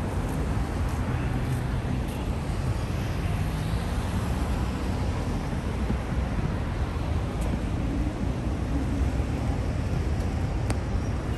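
Street traffic noise: vehicle engines and tyres running steadily.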